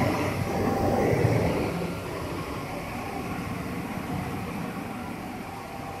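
A vertical glass washing machine running, with a steady mechanical noise that is louder for about the first two seconds and then settles lower.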